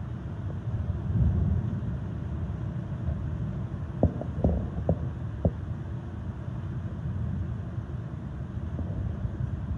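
Floodwater torrent rushing through a street, a steady low rumble, with a handful of quick sharp knocks about four to five and a half seconds in.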